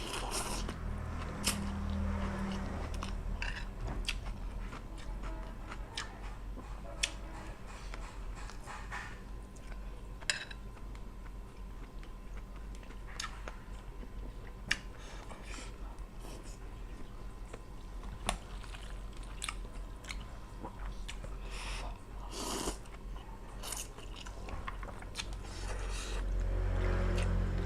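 Close-up chewing and biting of fish-cake rice noodle soup, with many small, irregular mouth clicks and crunches.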